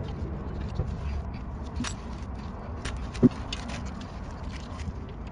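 Scattered light metallic clicks and taps from handling a VW Golf Mk5 rear brake caliper as it is fitted back over the pads, with one louder clunk about three seconds in, over a low steady background hum.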